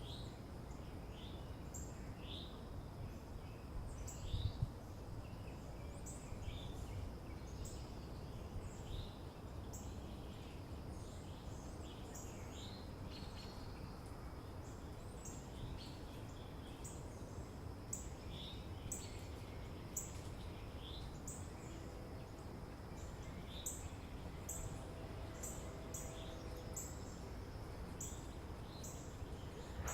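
Early-morning suburban ambience: small birds chirping repeatedly in short, high calls over a steady low background rumble. A brief low thump about four seconds in is the loudest moment.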